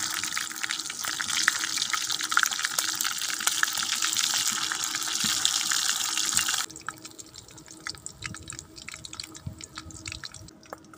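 Seasoned free-range chicken pieces deep-frying in hot oil in a wok, a dense sizzle full of crackles and pops. About two-thirds of the way through, the sizzle drops suddenly to a much quieter crackling.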